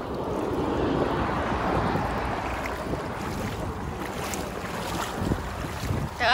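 Feet wading and sloshing through shallow water, with wind buffeting the microphone.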